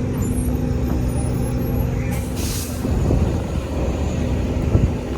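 Steady low engine rumble, with a short burst of air hiss about two seconds in.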